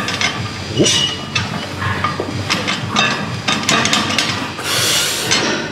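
Lifting straps being put on and pulled tight at the wrists: short scrapes and rubs of strap material, with a longer rasping rip about five seconds in.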